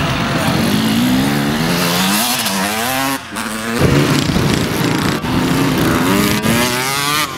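Off-road motorcycle engines revving hard as dirt bikes accelerate past, the pitch climbing and then cutting off sharply about three seconds in, then climbing again near the end.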